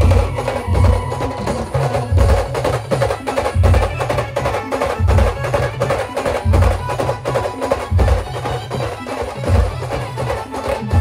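Brass band playing an instrumental passage of a Marathi folk song: heavy bass drum beats about once a second under fast, busy percussion and a held melody line.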